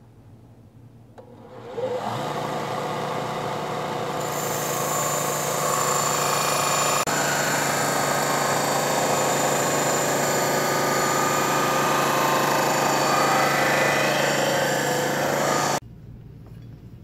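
Belt grinder motor coming up to speed about two seconds in and running with a steady hum, then the steel edge of an axe head cut from an old circular saw blade being ground on the sanding belt, a rough steady grinding noise over the motor. The sound stops abruptly near the end.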